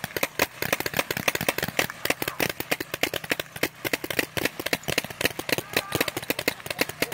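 Several small guns, air-powered game guns of the paintball or airsoft kind, firing a rapid, irregular stream of sharp pops, several a second.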